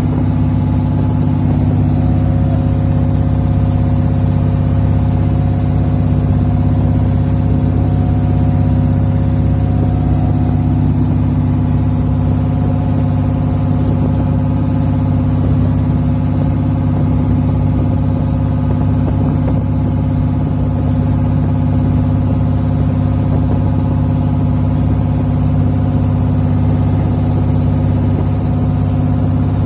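Outrigger boat (bangka) engine running steadily under way, a loud, even drone that holds one pitch throughout.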